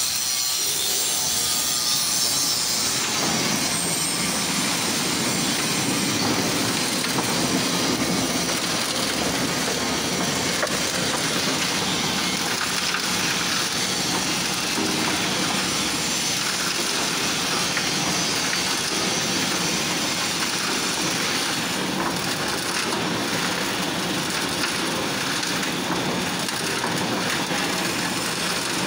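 Reversible concrete drum mixer running, its drum turning to discharge concrete, with a steady grinding rattle of the mix tumbling in the drum and spilling out.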